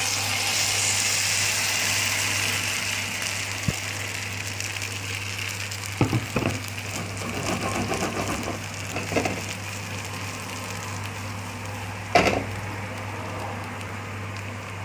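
Egg, potato and onion omelette mixture sizzling in hot oil in a frying pan, loudest just after it goes into the pan and slowly easing off. A few short knocks of a utensil against the pan around the middle and one near the end.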